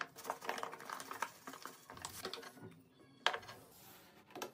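Faint, scattered crackling and small clicks of coarse bath-salt crystals in a glass tumbler, shifting as a gloved hand works into them, with a few sharper ticks of glass.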